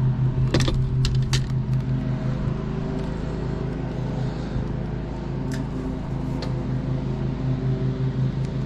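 A motor hums steadily, with a few sharp metallic clicks and clatters: a cluster about a second in and two more later.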